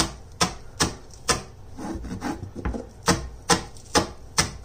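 Chef's knife finely chopping scallions on a wooden cutting board: sharp knocks of the blade against the board, about two to three a second, with a softer, irregular stretch in the middle.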